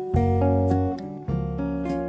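Background music: plucked acoustic guitar over a steady bass, with a regular beat.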